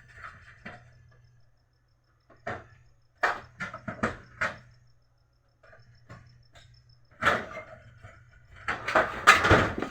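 Plastic clicks and knocks as the HP LaserJet M1005 printer's side cover is worked off its clips. There is a single knock, then a quick run of about four clicks, another knock, and a louder cluster of knocks near the end.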